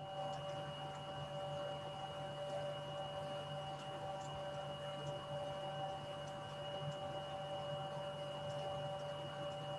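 Steady electrical hum made of several fixed tones, picked up through a video-call microphone, with faint scattered ticks.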